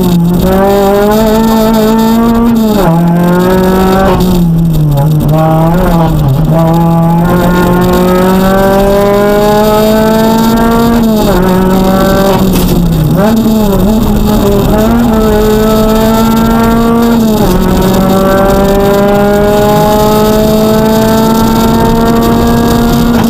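Citroën DS3 R1 rally car's four-cylinder engine at full throttle, heard from inside the cabin, pulling hard through the gears on a rally stage. Its pitch climbs steadily for several seconds at a time and drops sharply at each upshift, with quick dips and throttle blips in the first few seconds.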